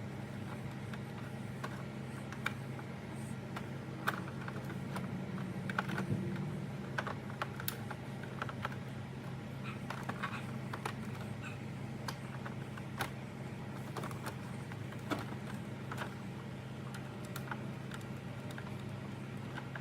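Scattered light clicks and taps of plastic grille parts and wiring connectors being handled and fitted, over a steady low hum.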